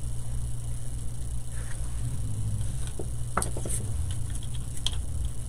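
A steady low hum, with a few light clicks and taps about three to five seconds in as small painted wooden craft pieces are handled and set down on the paper-covered table.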